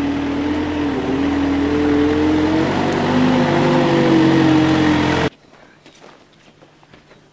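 Truck-mounted forklift engine running under load as the forklift drives with a load of sod, its pitch rising and falling. The sound cuts off suddenly about five seconds in, leaving only faint background sound.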